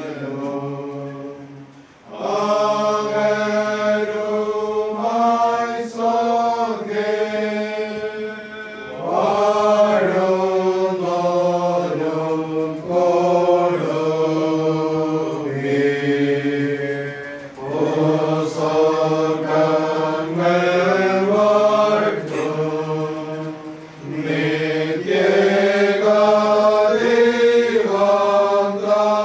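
Voices chanting together at a church service, singing slow held notes in phrases a few seconds long with short pauses between them.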